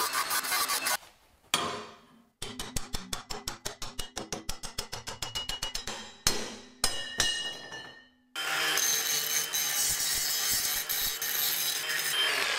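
A Ryobi cordless angle grinder grinding welded square steel tube. It then gives way to a hammer beating a steel diagonal brace: one knock, a fast, even run of strikes, and a few heavier blows that ring. The grinder then grinds the steel steadily again for the last few seconds.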